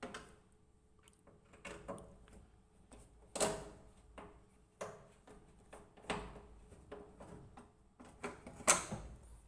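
Irregular knocks and clicks of a top-load washing machine's plastic panels and tools being handled during disassembly. The loudest knocks come about three and a half, six and nearly nine seconds in.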